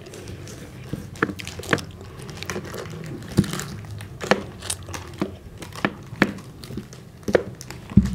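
A plastic chocolate-bar wrapper crinkling as it is bitten and tugged with the teeth, in irregular sharp crackles about twice a second, with mouth noises of biting and chewing banana.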